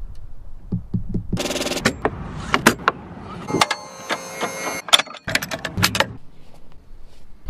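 Handling noises: a string of knocks and sharp clicks, a brief high-pitched screech about a second and a half in, and a metallic jangle lasting just over a second around the middle.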